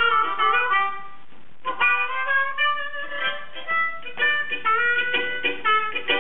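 Two harmonicas playing a blues phrase of quick short notes and bends, amplified through microphones and a PA. The playing breaks off for a moment about a second in, then starts again.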